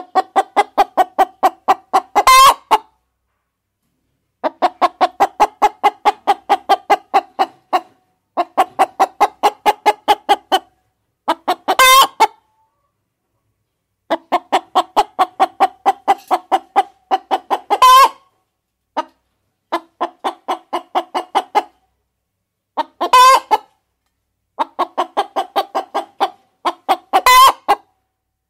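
Hen cackling: runs of rapid, even clucks, about four or five a second, each run ending in a louder, higher squawk, repeated six or seven times with sharp silences between.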